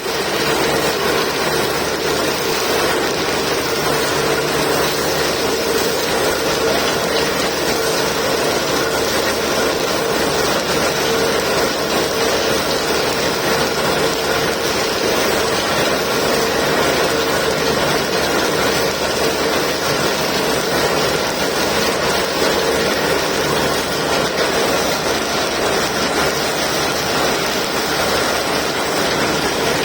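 Borewell drilling rig running steadily while drilling a bore: a loud, even mechanical noise that does not let up.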